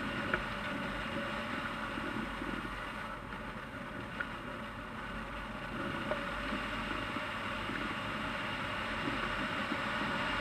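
Steady wind rush over a camera mounted on a hang glider in flight, with a faint steady whine and a few small clicks.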